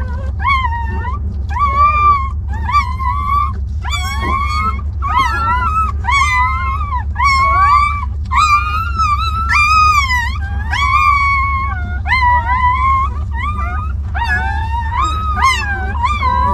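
Newborn puppies whining and crying, a near-continuous string of high-pitched squealing calls that often overlap one another, over a steady low hum.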